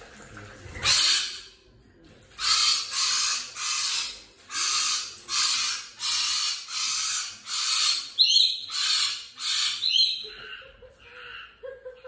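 Lorikeet screeching: a rapid series of about a dozen harsh calls, each under half a second, with a couple of shriller whistled notes near the end as the calls fade.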